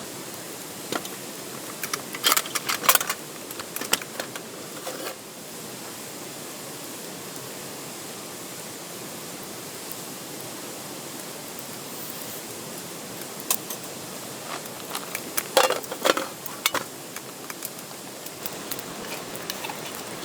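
A steady hiss with two clusters of sharp clicks and knocks, about two seconds in and again about fifteen seconds in.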